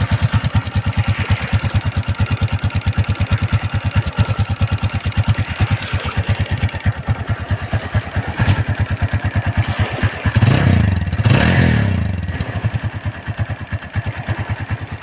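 Motorcycle engine idling through a homemade exhaust silencer made from a can fitted into the chrome muffler tip, with steady, even exhaust pulses. The engine is briefly revved about two-thirds of the way in.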